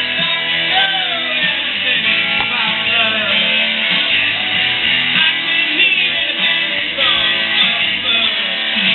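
Rock music led by guitar, mainly electric, playing steadily throughout.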